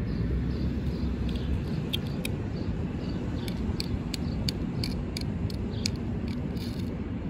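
Steady low city rumble of distant traffic and elevated trains, with a scatter of short, sharp high ticks through the middle.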